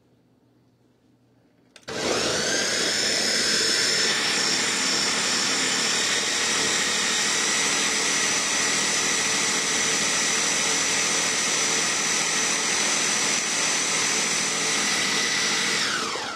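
Large countertop blender starting about two seconds in with a rising whine, then running steadily at high speed as it chops raw potato and onion chunks into a pulp. It winds down and stops at the very end.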